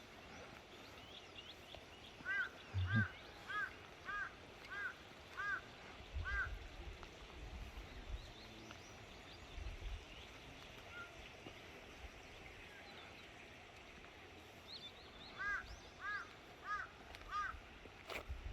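Crow cawing in the distance: a run of seven caws about two seconds in, then four more near the end, with faint chirps of small birds.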